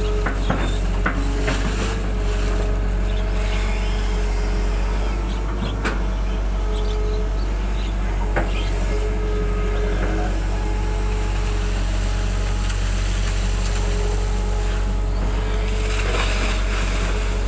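Excavator engine running steadily under a wavering whine, with a few sharp knocks.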